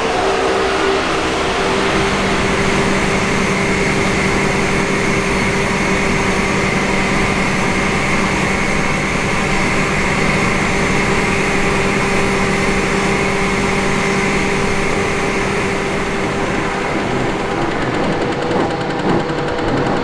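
Machinery running steadily, with a low hum and a faint high whine; the hum fades about three-quarters of the way through and a few irregular knocks come near the end.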